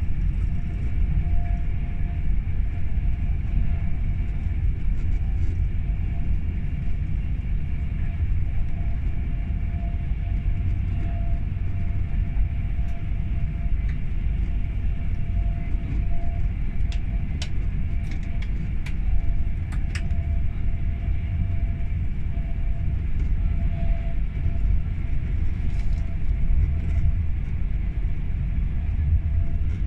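Cabin running noise of a Class 390 Pendolino electric train at speed: a steady low rumble with a faint steady hum over it. A few sharp ticks come a little past halfway.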